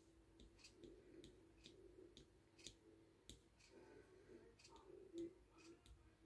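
Faint, irregular ticks of a wood-burning pen's hot tip flicking across the wood in short fur strokes, about two a second, in near silence.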